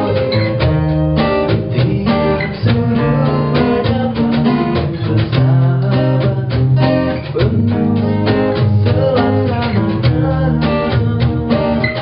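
A small acoustic band playing a slow pop song: a male and a female voice singing over strummed acoustic guitar, bass, keyboard and a cajon beat.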